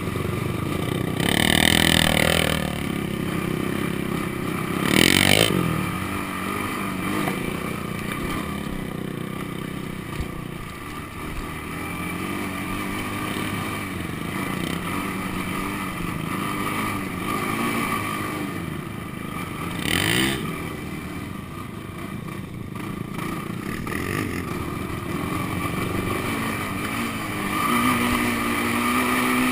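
Sport quad (ATV) engine running and revving as it rides over sand, with three short louder surges that rise and fall in pitch, about two seconds in, about five seconds in, and about twenty seconds in, and a steadier held engine note near the end.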